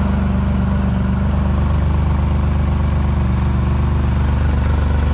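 1990 Mitsubishi Minicab U42T kei truck's small three-cylinder engine idling steadily, heard from underneath the truck.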